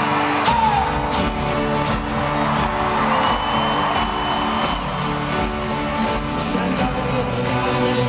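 Live folk-rock band music from an arena sound system, recorded from the audience: strummed guitars over steady low bass, with the crowd whooping and cheering, and a held high whistle from the crowd around the middle.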